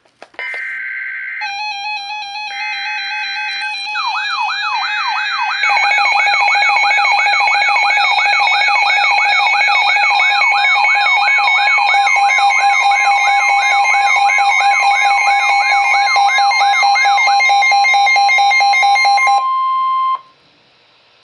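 Emergency Alert System tones for a NOAA Weather Radio severe thunderstorm warning: three short screeching bursts of SAME header data, layered with steady electronic alarm tones and, from about four seconds in, a rising wail that repeats a little over twice a second. The alert gets louder about five and a half seconds in, and a single steady alarm tone ends on its own about twenty seconds in.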